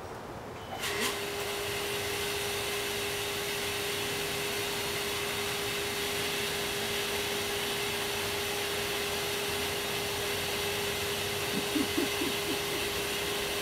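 A motor-driven machine switches on with a click about a second in and runs steadily: a whooshing hiss with a steady hum.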